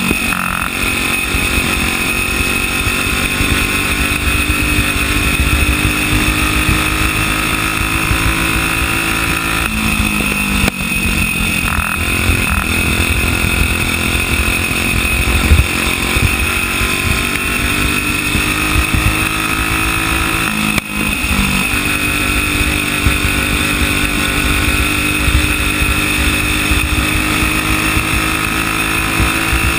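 Single-cylinder Briggs & Stratton flathead kart engine running at racing speed. Its pitch drops as it comes off the throttle about ten seconds in and again about twenty-one seconds in, then climbs again as it pulls out of the turns.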